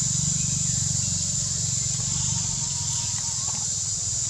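Forest ambience: a steady high-pitched insect drone over a low steady hum, with a few faint chirps.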